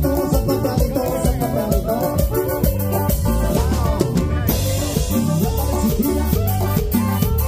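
Live band playing a Latin dance tune over a loud PA: a synthesizer keyboard melody over bass and a steady drum beat. The cymbals drop out briefly about four seconds in.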